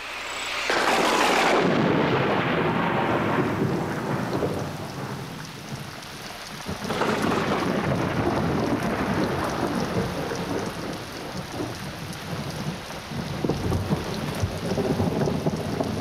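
A large flock of white cockatoos screeching together, a dense continuous din of many harsh calls. It is loudest in the first few seconds, dips around six seconds in, then swells again.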